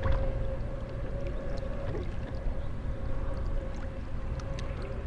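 A bass boat's electric trolling motor running with a steady whine, over a constant low rumble of wind and water and a few light ticks.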